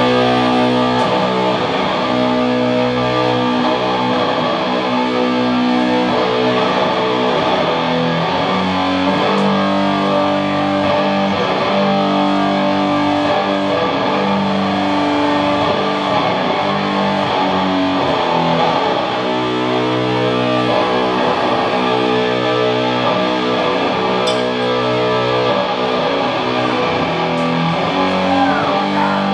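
Doom metal played loud, with heavily distorted electric guitars sustaining slow, drawn-out chords that change every second or two.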